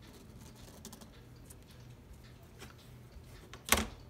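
Light clicks and taps of small hand tools being picked up and set down, with one sharp, louder click near the end.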